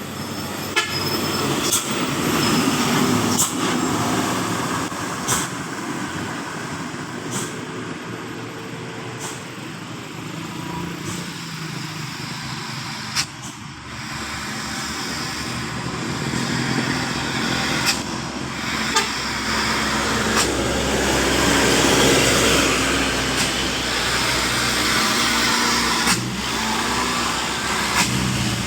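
Heavy road traffic passing: steady engine and tyre noise that grows louder in the second half, with several short sharp clicks.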